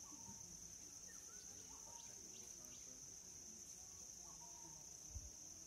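Steady high-pitched drone of insects in forest scrub, with a few faint chirps and one soft low thump about five seconds in.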